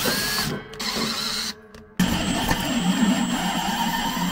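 Cordless drill running a combination drill-tap bit into a thin steel barrel wall, boring and threading a bolt hole. The motor runs in two short bursts, then steadily for the last couple of seconds with a thin, high whine.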